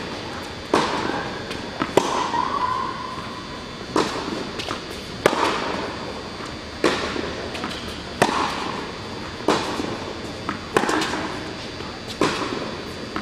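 Tennis balls struck by racquets in a baseline rally, a sharp pop about every one and a half seconds, the hits ringing in the echo of an indoor tennis hall.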